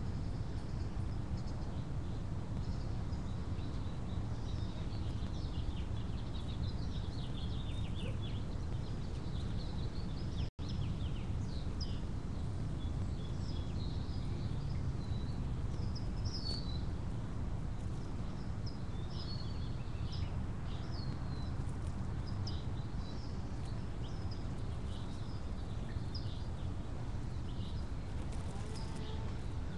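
Small birds chirping in short, high calls scattered throughout, over a steady low background rumble. The sound cuts out for an instant about ten seconds in.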